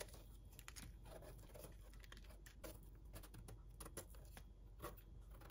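Near silence with faint scratching, rustling and scattered light clicks of hands handling cut mushrooms and their trimmings.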